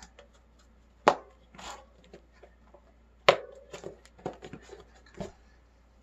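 Ritchey Z-Max tubeless mountain-bike tyre being worked onto its rim by hand. Two sharp knocks, one about a second in and one about three seconds in, are each followed by a few softer knocks and the rub of rubber against the rim.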